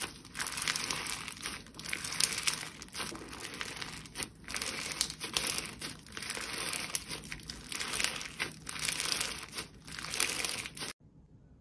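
Green slime full of flower-shaped sequins being squeezed and stretched by hand, giving off a dense crinkling crackle that swells and fades with each squeeze. It cuts off abruptly shortly before the end.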